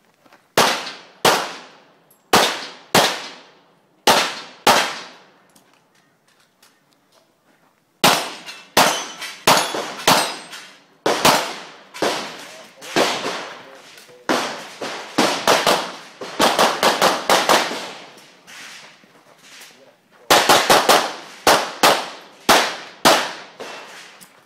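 9mm pistol firing in quick strings, each shot followed by a short echoing tail. Six shots come in pairs early on, then after a pause of about three seconds the shots come fast and dense for the rest of the time.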